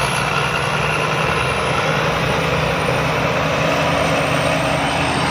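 Rice combine harvester running steadily: a low engine hum under a dense, even mechanical rush.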